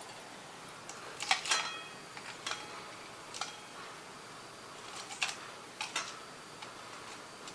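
Iron steelyard chain links clinking against each other and against a metal pan as the hot chain is moved about in oil for oil bluing: scattered sharp, ringing metallic clinks, bunched about a second in and again around five to six seconds, over a faint steady hiss.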